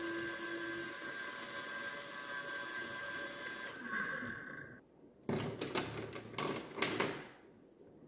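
Small USB mini desk fan running with a steady motor whine, then switched off about five seconds in. Then a couple of seconds of loud rustling and knocking as paper streamers and small objects are handled.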